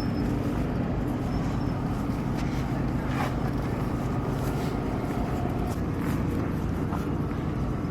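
Vehicle engine running steadily, a constant low hum with no change in speed.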